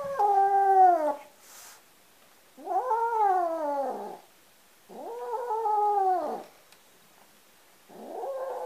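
Domestic cat yowling angrily: four long, drawn-out grumbling calls, each rising and then falling in pitch, with short pauses between, the last cut off.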